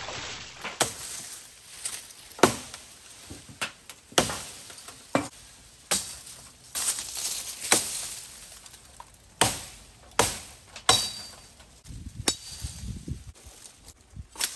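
A blade chopping into the green limbs of a fallen tree: about a dozen sharp chops at an uneven pace, roughly one a second, with leaves and twigs rustling between the strokes.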